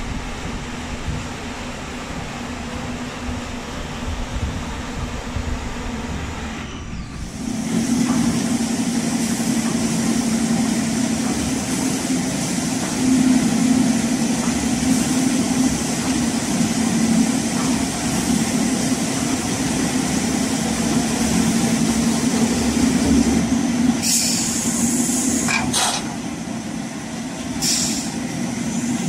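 Veneer peeling line machinery running with no speech. First a rumbling noise, then, after a break about seven seconds in, a louder steady machine hum at one fixed pitch. Near the end come a few short hissing bursts.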